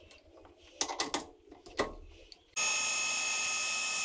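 Metal clicks and knocks as a workpiece is set in a metal lathe's chuck. About two and a half seconds in, the lathe is running: a loud, steady whine made of several high tones starts abruptly.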